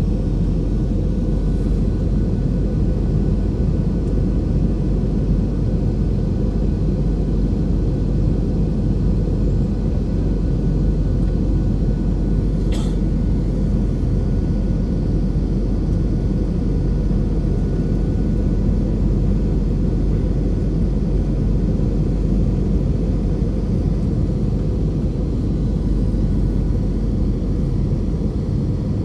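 Steady roar of a jet airliner in flight heard from inside the cabin: deep, even engine and airflow noise, with one brief click about halfway through.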